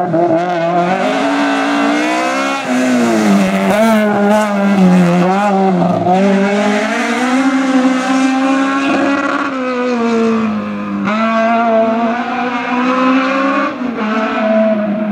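Hillclimb race car's engine at high revs, its pitch rising and falling as it accelerates and lifts through the course, with a few abrupt jumps in pitch.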